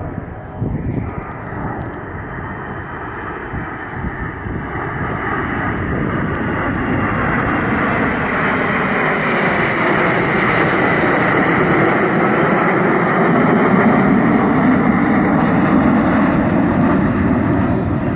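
Jet engines of a formation of four Panavia Tornado fighters passing overhead: a steady roar that grows louder over several seconds and stays loud through the second half.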